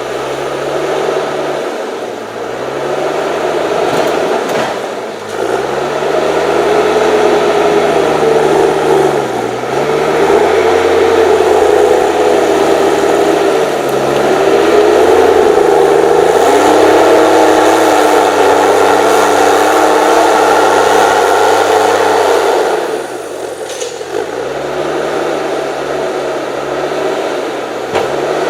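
HSM 904 S forestry machine's 6.7-litre diesel engine working hard, its revs dropping and climbing back several times and held at their highest for a stretch past the middle before easing off near the end.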